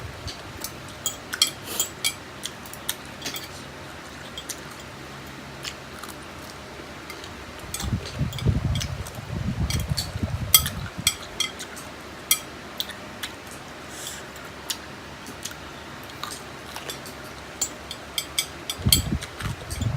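Close-miked eating of spicy instant noodles: wet mouth clicks and chewing sounds, scattered and irregular, with a louder, fuller stretch of eating sounds about eight to eleven seconds in and again near the end.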